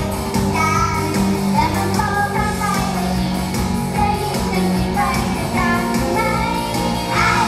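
Idol pop song performed live: female voices singing over a loud backing track with a steady bass line.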